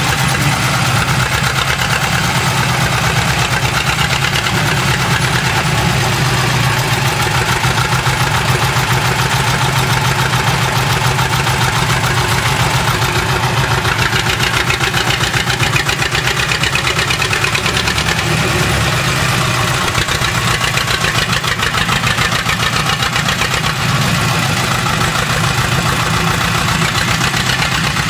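Diesel engine of a Fortschritt T174/2 wheeled excavator running steadily as the machine drives off, with an even, rapid beat of firing pulses and no change in revs.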